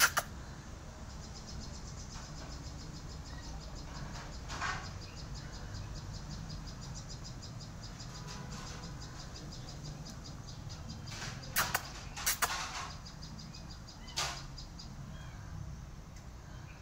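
An insect chirping in a fast, even trill of high pulses, with a few sharp clicks or knocks, the loudest a quick cluster about twelve seconds in, over a steady low background rumble.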